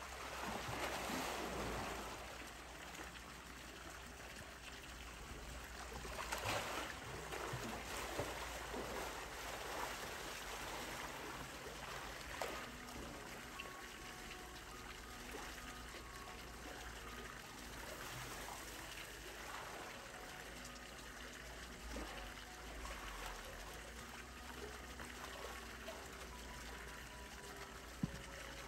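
Pool water splashing and trickling around a swimming polar bear, with louder splashes in the first couple of seconds and again about six and twelve seconds in, then a steady trickle of water.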